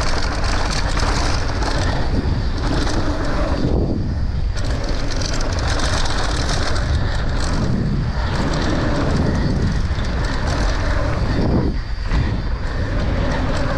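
Mountain bike descending a dirt jump trail at speed: a steady rush of tyres on hard-packed dirt and gravel with the bike rattling. The noise briefly drops out about every four seconds, as the wheels leave the ground over jumps.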